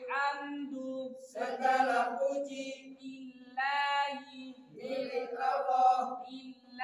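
A group of men reciting Qur'anic verses aloud in a chanting melody, in several phrases with short breaks between them.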